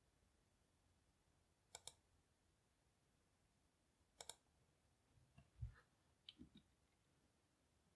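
Faint computer mouse clicks: two quick double clicks about two and a half seconds apart. Past the middle come a soft low thump and a few lighter clicks.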